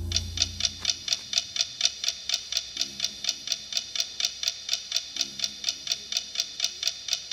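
Steady clock-like ticking, about four sharp ticks a second, with a low pulsing note coming and going beneath it.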